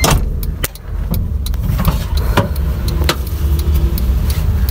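1999 Honda Civic EK's straight-piped four-cylinder idling, a steady low rumble heard from the driver's seat inside the cabin, with scattered light clicks and knocks.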